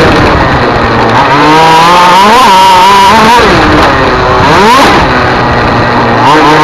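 Race car engine at high revs, its pitch climbing and then dropping and rising sharply several times.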